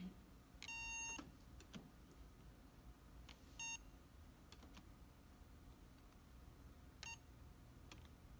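Electronic hotel keycard door lock beeping as programming cards are held to its reader: one longer beep about a second in, then single short beeps a little before halfway and near the end, with faint clicks in between.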